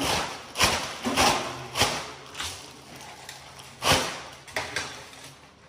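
A large white sheet being flapped and snapped through the air: a run of about six sharp swishing snaps, the loudest about four seconds in.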